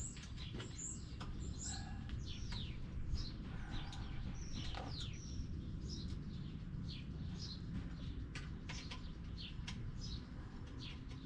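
Small birds chirping, many short down-sliding chirps in quick succession, over a steady low rumble, with a few light clicks.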